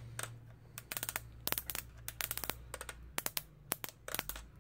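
Plastic ratchet joints in the leg of a Playmates Legendary Black Lion action figure clicking in quick, irregular runs as the leg is swung through its range.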